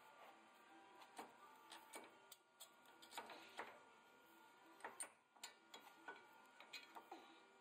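Faint, irregular metallic clicks and knocks as the front steering knuckle and hub assembly is handled and swung outward on a 2005 Chevrolet Trailblazer's front suspension, with the lower ball joint already disconnected. The clicks cluster between about a second and five seconds in, over a faint steady hum.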